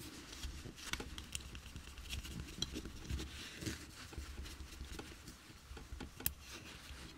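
Faint scratchy rubbing of a cloth rag on the clear plastic windshield piece of a model car, buffing off dried polish, with small clicks as the plastic part is handled and one sharper click about six seconds in.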